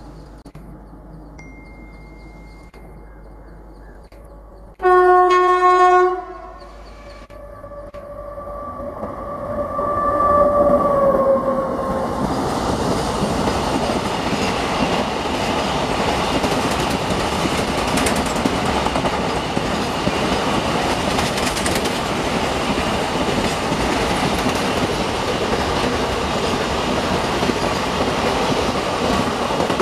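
An electric locomotive's horn gives one loud blast of about a second, then a longer, softer note as the noise of the approaching train builds. From about twelve seconds in, a long rake of car-carrier wagons rolls past with a steady rolling noise of wheels on rails.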